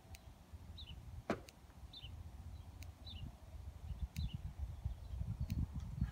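Low rumble of wind on the microphone, with a small bird repeating a short two-note chirp about once a second and a single sharp knock about a second in.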